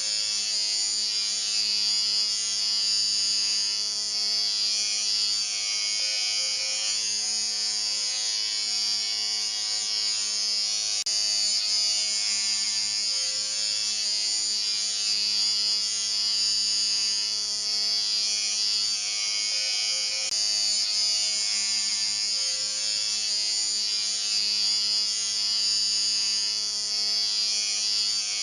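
Electric shaver running with a steady buzz, its level swelling and easing slightly every few seconds.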